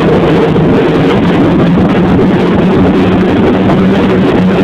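Snowmobile engine running loud and close at a steady speed, its pitch holding steady.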